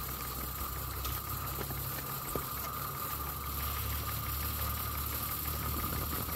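Small live-steam model locomotive running steadily on a rolling-road stand, giving a steady hum with a few faint ticks.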